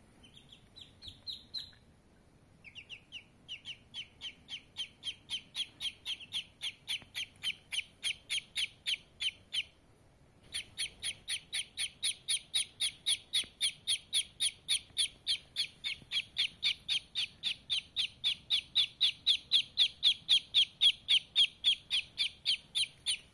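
A duckling peeping in a fast, even series of high peeps, about four a second, with two short breaks, growing louder toward the end.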